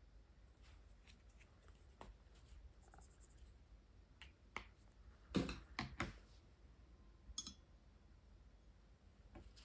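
Faint taps and scratches of water-based markers being handled and worked on watercolour paper, with a quick cluster of louder clicks a little past the middle and a single sharper click with a short ring soon after.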